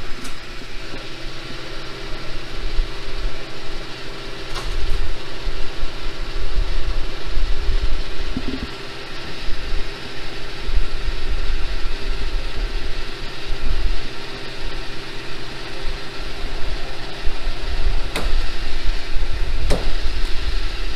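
Gas pump dispensing fuel into a car, with a steady hum from the pump as the meter counts up. Uneven low rumble runs underneath, and a few sharp clicks sound, one near the start and two near the end.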